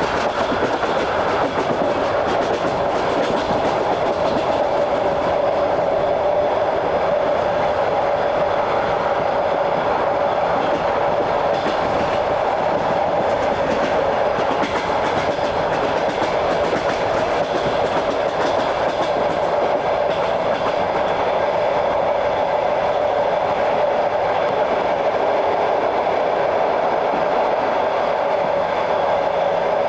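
Train wheels clattering over the rail joints, with a steady running rumble, heard aboard a moving train.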